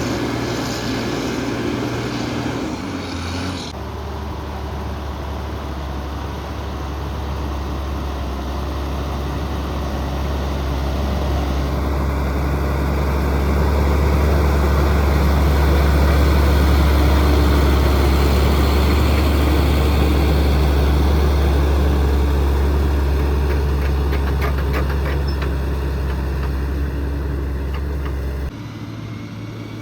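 Heavy diesel construction machinery running with a steady low drone. It grows louder toward the middle and eases off again, and the sound changes abruptly near the start and near the end.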